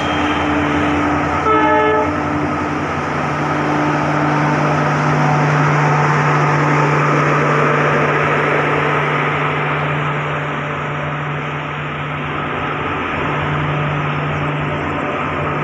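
Passenger express coaches rolling slowly past as the train pulls out of the station: a steady running and wheel noise under a low hum. A short train horn toot sounds about one and a half seconds in.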